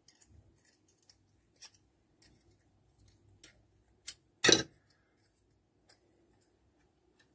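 Pliers squeezing and folding over the corners of a thin tin-can offcut: scattered small metallic clicks, with one much louder sharp click a little after halfway.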